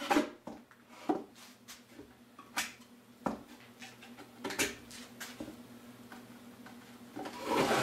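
Scattered wooden knocks and light scraping as a plywood-topped wooden hive lid is shifted on a workbench and its dried glue squeeze-out is trimmed with a sharp knife: about six separate sharp taps spread out, with a louder bout of handling near the end.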